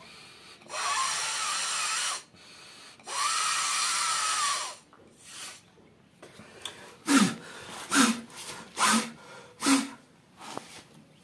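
A person blowing into a rubber balloon through a straw: two long exhaled blows, each about a second and a half, inflating it. Later come four short sharp sounds, about a second apart.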